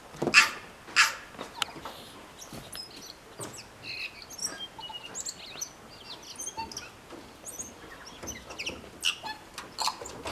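Kea calling loudly twice in the first second, while a tui sings in the background: a long run of short, high notes of changing pitch, with a few louder calls again near the end.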